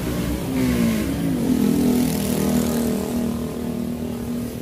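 A motor engine speeds up, rising in pitch for about a second, then runs at a steady pitch, loudest in the middle and easing off slightly near the end.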